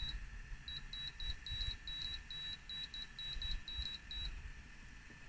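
Electronic beeper sounding a quick run of about a dozen short, high beeps, all at one pitch but in an uneven rhythm, starting just under a second in and stopping about four seconds in.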